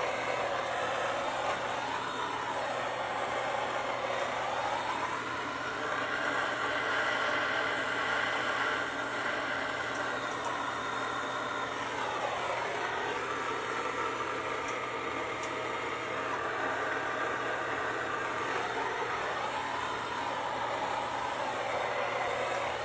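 Plumber's torch flame hissing steadily while it heats a copper pipe joint for soldering. The tone of the rush slowly rises and falls several times.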